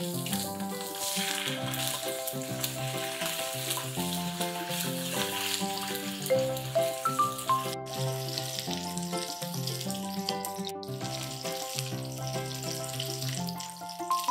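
Milkfish pieces sizzling steadily as they shallow-fry in hot oil in a pan, with melodic background music playing over it.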